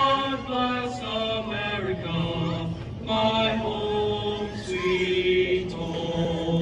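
Slow singing with long held notes that step and glide gently in pitch.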